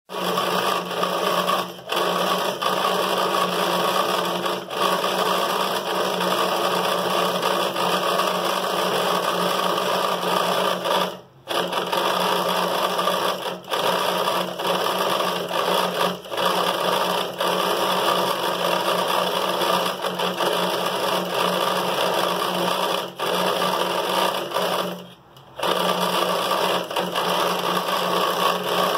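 Small electric motor of a homemade mini Van de Graaff generator running steadily, dropping out twice for about half a second.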